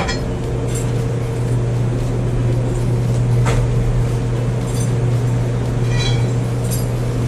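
Steady low machine hum, with a few light metallic clinks of tools and parts being handled inside the machine enclosure.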